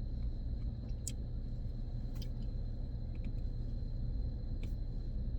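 Steady low rumble of a car's interior with the engine idling, with a few faint clicks and taps about one, two and four and a half seconds in.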